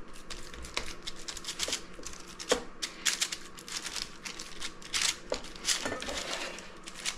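Wet hands patting and pressing a raw ground pork and beef mixture into a loaf on a parchment-lined sheet pan: irregular soft slaps and squishes.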